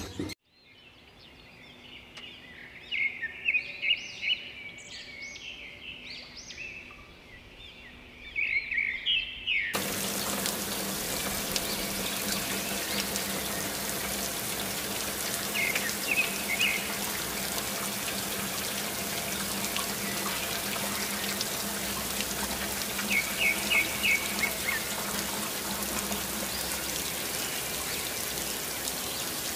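Small birds chirping over a quiet background; then, from a sudden change about ten seconds in, the steady rush of water falling down a water-curtain fountain, with a low steady hum beneath it and a few more bird chirps.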